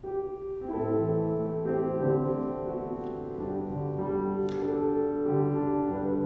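Grand piano playing the slow introduction to a hymn: sustained chords over a bass line that moves about once a second, starting right at the beginning.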